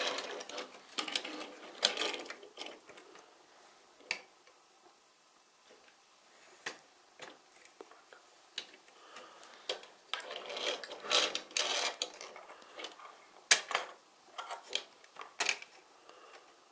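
Plastic building-brick parts of a Sluban truck transporter clicking and rattling as they are handled: the upper deck and small toy cars being moved and set in place. Clusters of clicks near the start and again from about ten seconds in, with a few single clicks between.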